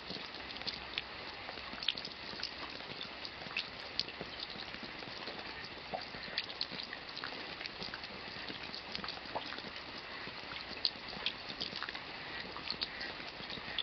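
Steady rain falling, an even hiss with many separate drops landing close by as short, sharp taps at irregular moments.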